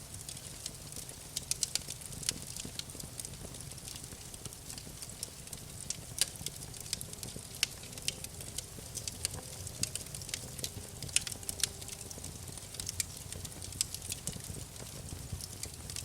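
Campfire burning, the wood crackling and popping at irregular intervals over a low, steady rumble of flames.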